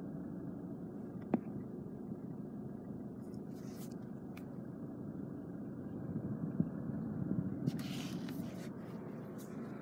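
VW Golf GTD's 2.0 TDI diesel idling, a steady low rumble heard inside the cabin. A single sharp click comes about a second in, and there is a little handling rustle near the end.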